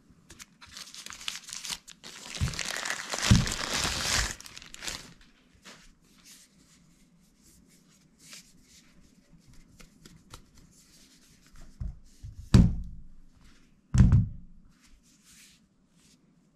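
Plastic packaging bag crinkling and rustling as it is handled and pulled open, loudest in the first few seconds, then softer scattered rustles. Two sharp knocks come about 12.5 and 14 seconds in.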